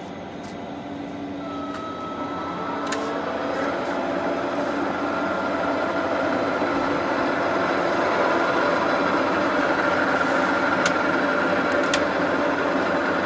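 TOS Trenčín SUI 32 lathe running, its headstock gearing whining and rising in pitch and loudness over the first few seconds as the spindle comes up to speed, then running steadily. A few sharp clicks.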